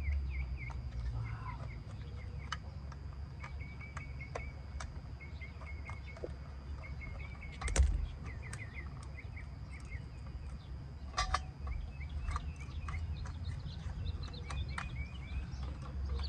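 Small birds chirping over a steady low rumble, with scattered sharp clicks and knocks from hand tools; the loudest knock comes about eight seconds in, and a quick cluster follows about three seconds later.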